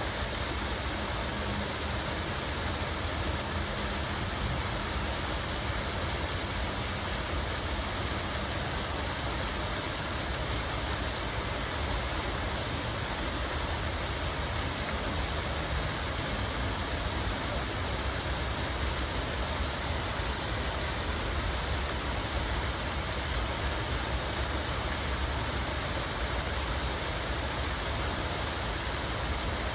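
Running water: a steady, unbroken rush of falling water, with a low rumble underneath.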